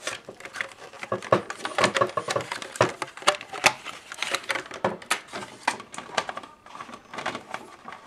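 Irregular clicks, knocks and scrapes of plastic and metal parts being handled as a juicer's control board is worked out of its plastic housing.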